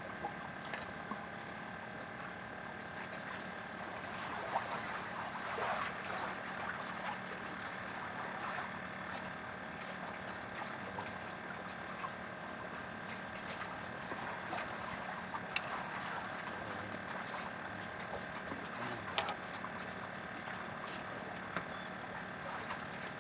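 Steady engine hum with several even tones, over a wash of water noise, with a few sharp clicks.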